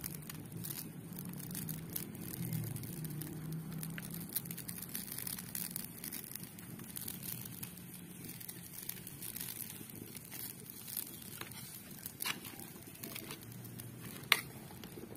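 Wood fire crackling under a wok of simmering coconut-milk curry, with scattered small pops and one sharp louder pop near the end.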